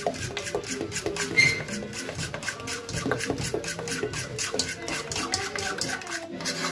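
Batter being beaten in a bowl: quick, even clicks of the utensil against the bowl, several a second.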